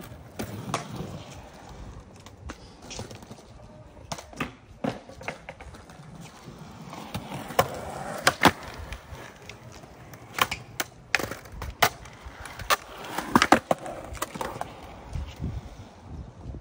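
Skateboard wheels rolling on concrete, broken by many sharp clacks of the board hitting the ground, with the loudest clusters about halfway through and again a few seconds later.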